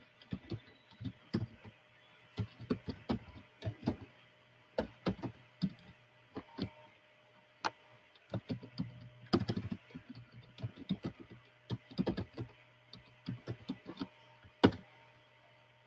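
Typing on a computer keyboard in irregular runs of keystrokes, with one louder key strike near the end, over a low steady electrical hum.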